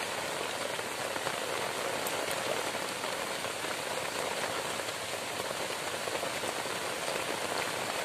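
Heavy rain falling steadily on a simple shelter thatched with grass and palm leaves and on the surrounding foliage, an even hiss of drops.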